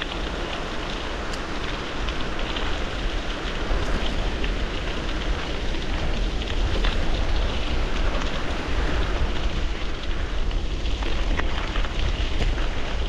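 Bicycle tyres rolling fast over loose gravel on a downhill run, a continuous crunching, crackling rattle with wind rumbling on the microphone, getting louder a few seconds in.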